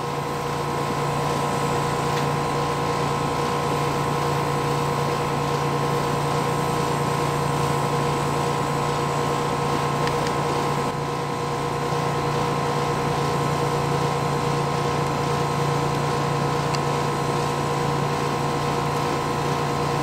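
Central air conditioner's outdoor condensing unit running steadily, its compressor and condenser fan making an even, constant hum with a few steady tones over it.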